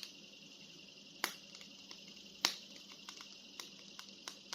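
Scattered small clicks and taps of a plastic action figure being handled, two sharper ones about a second apart, over a faint steady hiss.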